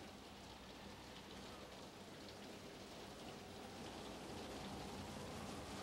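Steady rain falling: a faint, even hiss that slowly grows a little louder.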